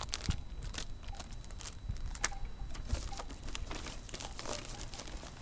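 Thin plastic mailer bag crinkling and rustling in irregular crackles as hands rummage inside it.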